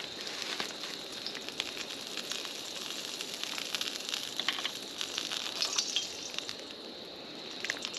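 Wood campfire crackling, with a steady sizzling hiss and many small irregular pops.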